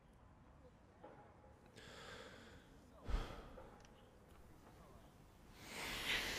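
A man breathing heavily, ending in a long breathy sigh near the end. A soft thump comes about three seconds in.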